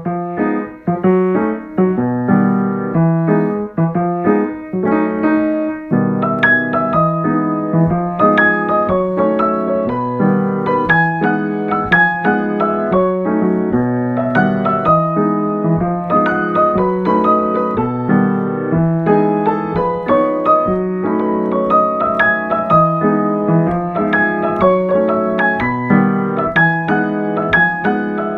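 Solo piano music playing a flowing run of notes, several struck each second.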